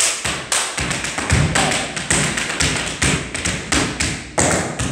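Tap shoes striking the floor in a quick, uneven run of taps and heavier stamps as a tap dance routine is danced, several strikes a second.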